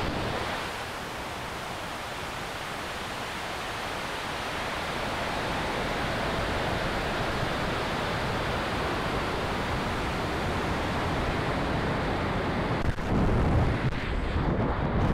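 High-power rocket flight heard from an onboard camera: the AeroTech I280 Dark Matter motor burns briefly at liftoff, then a steady rush of air over the airframe as the rocket coasts upward. It turns into irregular, gusty buffeting near the end as the rocket slows and tips over at apogee.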